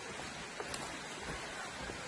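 Steady rush of a low-running rocky stream, with a few faint clicks of footsteps on rock and roots.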